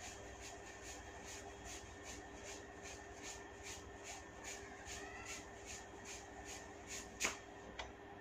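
Hair cracking: small locks of hair tugged one after another, each giving a faint sharp crack, about two or three a second. One much louder crack comes about seven seconds in.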